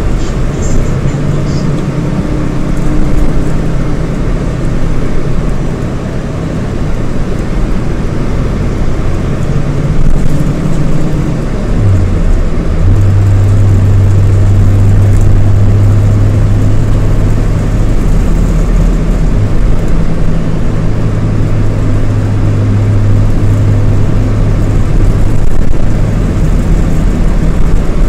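Scania DC9 230 hp five-cylinder diesel of a Scania K230IB coach running on the move, with a steady low engine drone. About twelve seconds in, the note dips briefly, then settles into a stronger, steady low drone, as when the engine comes under load after a gear change.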